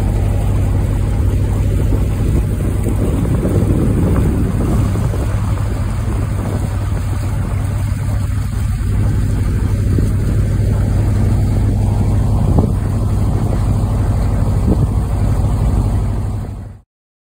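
A small motorboat's engine running steadily under way, a low drone with wind buffeting the microphone, which stops abruptly near the end.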